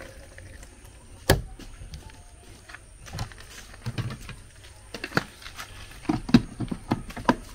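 Knocks and clicks of a plastic blender jar and its lid being handled: a sharp knock about a second in, then a run of clicks and clunks near the end as the jar is seated on the blender base. The motor is not running.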